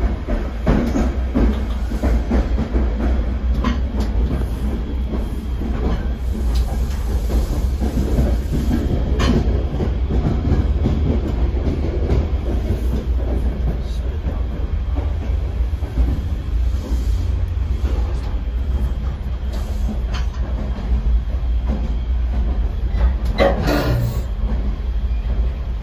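Shoreliner II passenger cab car running on the rails: a steady low rumble of wheels on track, with scattered clicks and rattles of the car body. There is a brief louder clatter near the end.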